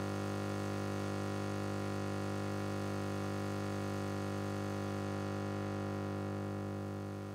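Steady electrical hum-buzz on the audio feed: one low pitch with many even overtones, unchanging, softening slightly near the end.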